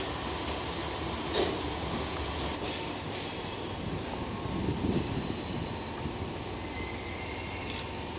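DD51 diesel-hydraulic locomotive idling at a standstill, a steady low rumble, with a sharp metallic click a little over a second in, a few fainter clicks, and a faint high squeal near the end.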